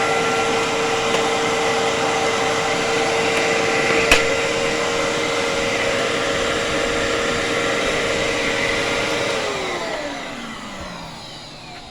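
Fantom Fury 10-amp vacuum cleaner running with a steady motor whine and rushing air, with a single sharp click about four seconds in. Near the end it is switched off and the motor winds down, its whine falling in pitch and fading.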